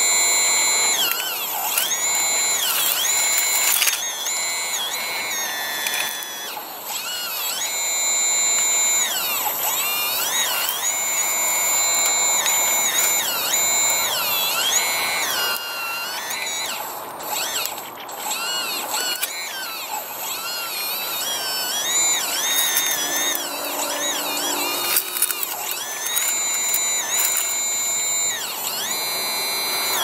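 Electric drive of a radio-controlled model Hitachi excavator whining as the boom, arm and bucket move: a high whine that holds steady, then dips and climbs back in pitch again and again as the controls are worked, with occasional clicks.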